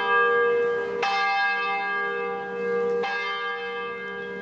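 A single bell tolling at the same pitch, struck about once every two seconds, each stroke ringing on into the next.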